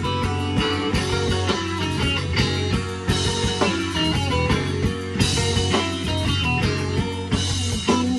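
Rock band playing live, guitar and drum kit, in an instrumental passage without singing.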